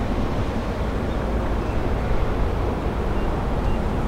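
Boeing 767-300 airliner's twin turbofan engines heard from afar on approach, a steady low rumble, with wind buffeting the microphone.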